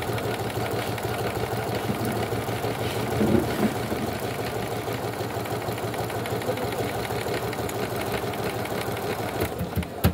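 Juki computerized sewing machine stitching a decorative pattern, running steadily at a fast, even rate. A few separate clicks sound near the end.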